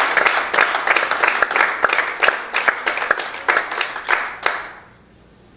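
Church congregation applauding, a hand clap of praise: many hands clapping together, thinning out and dying away about four and a half seconds in.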